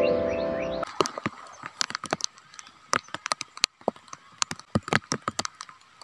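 Footsteps crunching on dry grass and leaves along a dirt footpath: irregular short crackling crunches. Piano music cuts off about a second in.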